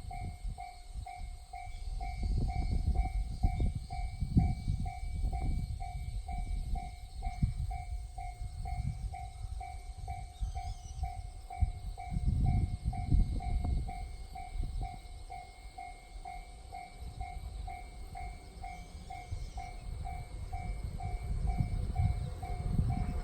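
Japanese railway level-crossing warning bell ringing steadily, an even electronic ding repeated about two or three times a second, the signal that a train is approaching. Underneath, a low rumble swells and fades.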